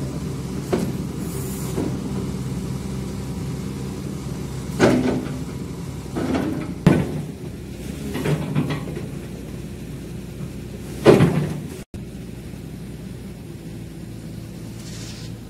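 Excavator diesel engine running steadily, with four loud metallic clunks over the first eleven seconds, the last the loudest.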